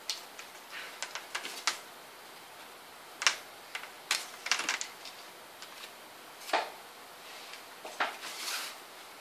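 Irregular small clicks and taps of hands handling a metal-bodied rechargeable LED camping lantern and threading a cord loop through its plastic end cap, with a few duller knocks as the lantern meets the table near the end.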